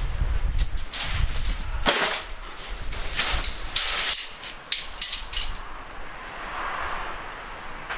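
Shock-corded tent poles being taken down and folded, their sections knocking together in a run of sharp clicks and clacks in the first five seconds, with the nylon tent fabric rustling softly after that.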